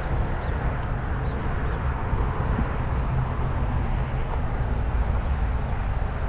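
Steady low rumbling noise, typical of wind buffeting the microphone.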